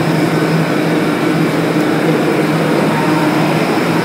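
New York City subway train standing at the station platform with its doors open, running a steady droning hum with a constant low tone.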